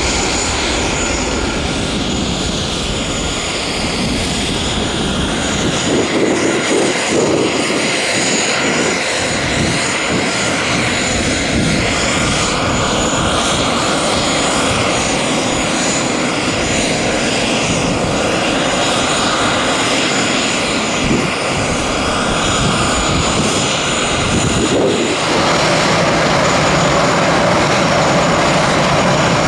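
Boeing 737-800's CFM56 jet engines running at takeoff power as the airliner takes off, a loud continuous engine noise. About 25 s in it changes abruptly to a steadier, even jet noise as an Airbus A319's engines start up.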